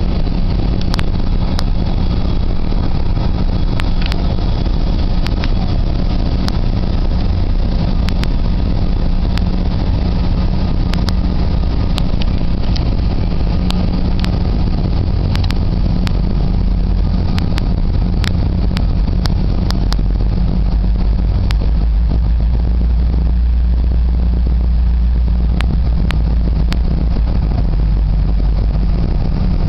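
GO Transit commuter train running on the track, heard from inside the coach: a steady low rumble with scattered sharp clicks. The rumble deepens in the last few seconds.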